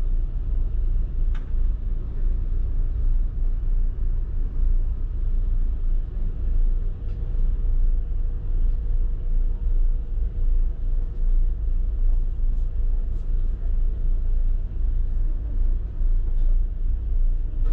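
Steady low rumble on the open deck of a catamaran ferry as it comes in to dock, from the ferry's engines and wind on the microphone, with a faint hum in the middle.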